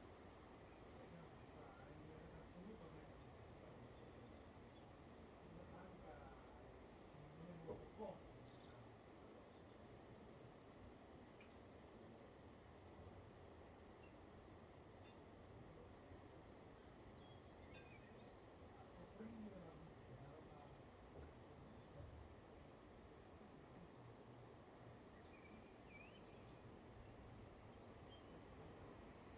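Faint insect chirping: a high, evenly pulsed trill that keeps on steadily, over a low, faint background hiss.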